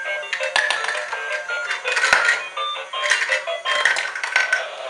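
Battery-powered Cute Dump Truck sorter toy playing its tinny electronic tune of short, bright beeping notes. Several sharp plastic clicks and clatters come through it as the tipper bed tips and drops the plastic sorter shapes.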